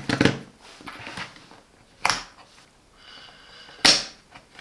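A small plastic laser level and its mounting pins being handled: a few sharp plastic clicks and knocks, with louder ones near the start, about two seconds in and near the end.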